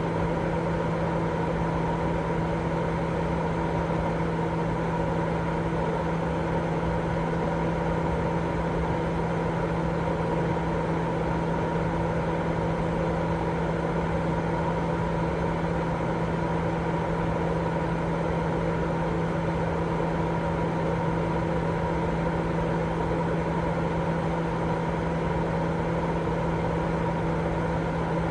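Continuous white noise for baby sleep: a steady, unchanging rushing sound with a low hum beneath it that never varies.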